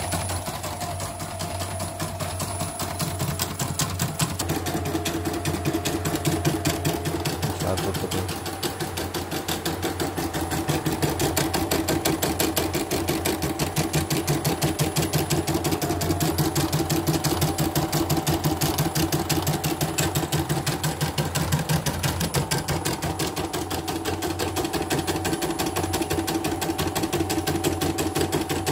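CNY E900 portable embroidery machine stitching a design at speed: a rapid, even chatter of needle strokes, running smoothly on its test run after servicing.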